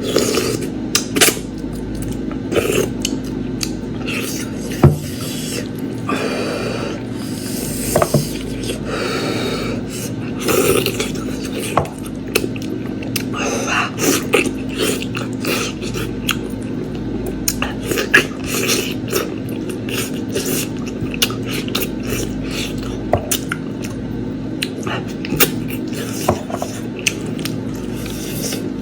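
A person eating lamb meat and beef trotters close to the microphone: chewing and lip smacks with frequent sharp clicks and a few longer slurps, over a steady low hum.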